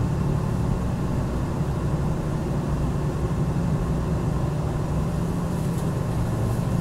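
Inside the cabin of a KiHa 261 series diesel express train under way: a steady low diesel engine drone mixed with running noise.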